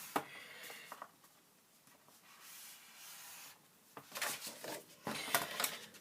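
Cardstock being scored on a paper scoreboard: a sharp tap at the start, a quiet stretch, then short rubbing and scraping strokes over the last two seconds.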